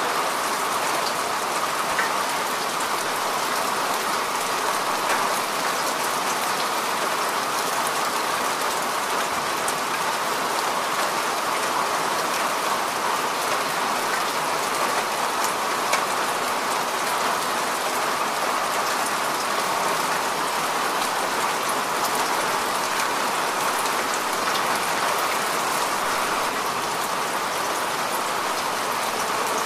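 Steady heavy rain falling, an even, unbroken hiss with scattered sharper drop hits.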